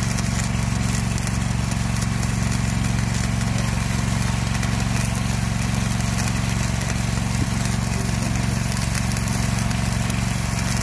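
Automated arc welding on a steel rail: a steady low machine drone from the welding set, with the arc hissing and crackling over it.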